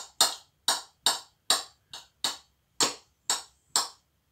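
Kitchen knife chopping boiled potato into small cubes on a cutting board: sharp, even knocks of the blade hitting the board, two to three a second, stopping shortly before the end.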